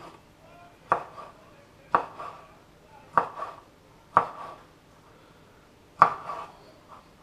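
Kitchen knife chopping a cleaned southern calamari tube into rings on a cutting board: five sharp knocks of the blade hitting the board, about one a second, with a longer pause before the last.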